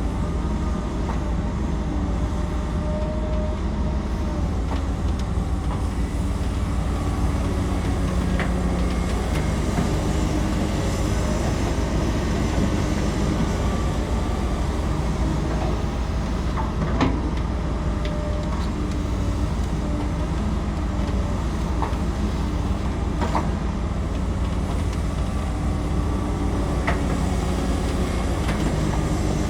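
Excavator's diesel engine running steadily under load, with a few sharp metallic knocks spread through.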